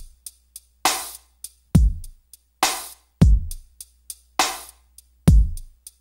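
Drum-machine beat with no vocals: deep kick-drum hits that drop in pitch as they fade, a sharp snare or clap hit about every two seconds, and light hi-hat ticks in between.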